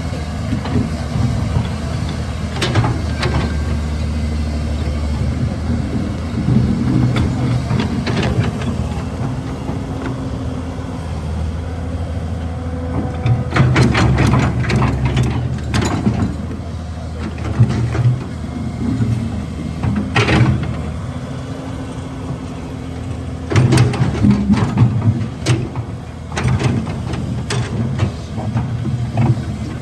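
Caterpillar 320 excavator's diesel engine running steadily, with bursts of knocking and scraping as the bucket handles rocks. The knocks come in clusters about halfway through, once more a little later, and again near the end.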